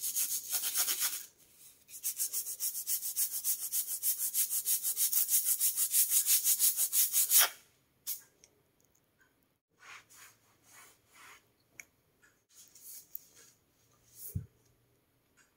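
Sponge scrubbing fast back and forth on a rough-textured painted wall, about five or six strokes a second, with a short break about a second in; the scrubbing stops about halfway through, leaving only faint scattered taps and rustles.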